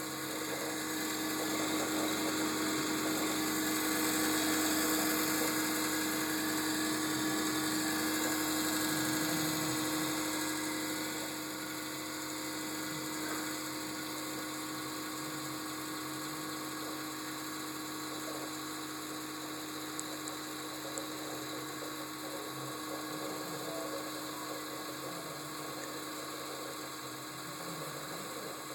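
Desktop PC running with a steady whirring hum and a held tone: the strange noise it makes when switched on. It is louder for about the first ten seconds, then drops a little and holds steady.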